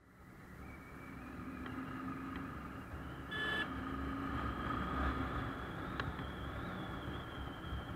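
Royal Enfield motorcycle engine running under way, heard with wind and road noise through an action camera's microphone, fading in at the start. A short beep sounds about three and a half seconds in.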